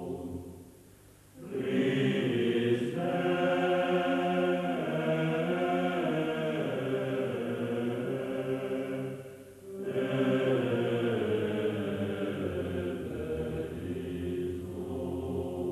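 Chanting voices singing long held notes on several pitches at once, like a small choir. It comes in about a second in, breaks off briefly about nine seconds in, and fades near the end.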